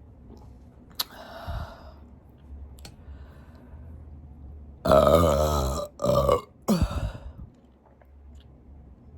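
A person burping up the gas from gulped carbonated soda: one long, deep burp of about a second, then two shorter burps in quick succession.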